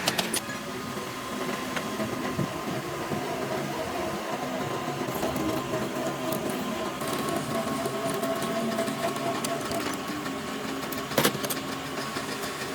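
A metalworking machine running steadily while a drill bores out a hole in a steel workpiece, a steady mechanical hum with a faint whine. A sharp knock sounds about eleven seconds in.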